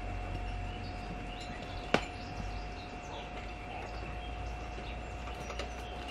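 A single sharp knock about two seconds in, over a steady faint two-tone hum and low rumble, with a few light ticks near the end.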